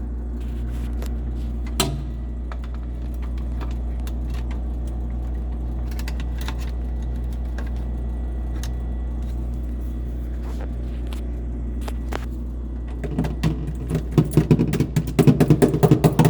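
Plastic refrigerator control-panel housing and its wiring being handled, with scattered clicks and a stretch of louder rattling and clattering near the end, over a steady low electrical hum.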